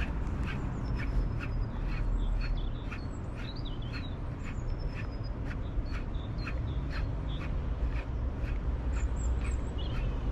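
Fishing reel clicking in an even rhythm, about three clicks a second, as a lure is wound in. Faint bird calls sound over a low rumble of wind.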